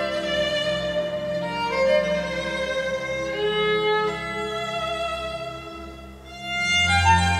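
Recorded violin playing a slow, legato melody over a low, sustained accompaniment, heard through Western Electric 142A valve amplifiers. Near the end the music briefly dips, then a deeper, louder bass note swells in.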